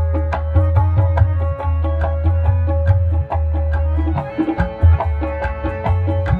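Qawwali music without singing: tabla drumming in a quick steady rhythm with a deep booming bass stroke, over sustained harmonium notes.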